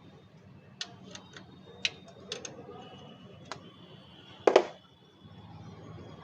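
Metal hand tools clinking against car parts and bolts: a handful of sharp, irregular clicks and one loud clank about four and a half seconds in.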